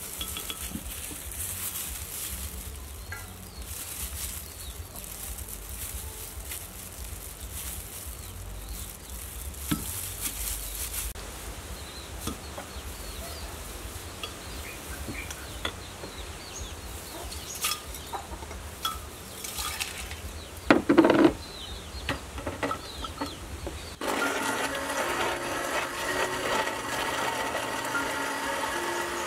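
Quiet outdoor background with scattered light clicks and taps as durian flesh is spooned into a blender jar, and a short loud double sound about two-thirds of the way through. Background music comes in near the end.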